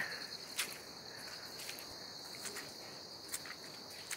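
Insects trilling: a steady high-pitched pulsing trill, with a few faint clicks over it.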